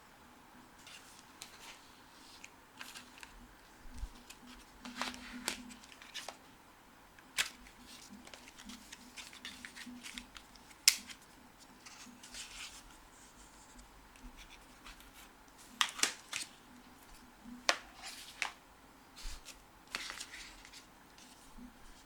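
Handling of product packaging: scattered sharp clicks and taps with short rustles of paper or cardboard, the loudest click about halfway through.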